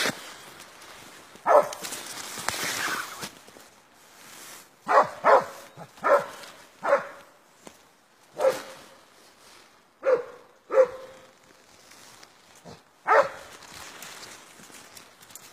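Barak hound, a Turkish hare-hunting scent hound, giving short loud single barks, about nine in all, irregularly spaced with some coming in quick pairs.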